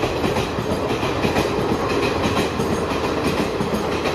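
Passenger train running through a station at high speed without stopping: a steady rumble of the coaches with rapid wheel clatter.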